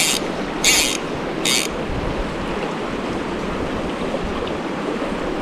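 Stream water rushing steadily. In the first two seconds there are three short, high-pitched hissing bursts.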